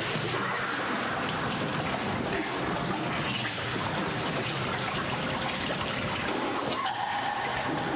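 Water poured in a steady stream over the cloth-covered face of a person being waterboarded.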